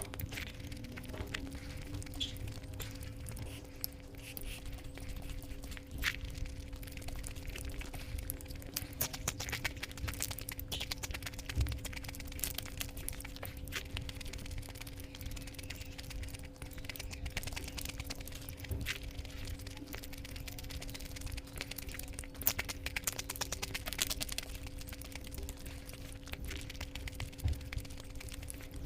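Close-up eating sounds of egg curry and rice: many short wet clicks and crackles from chewing and handling the food, over a steady low hum.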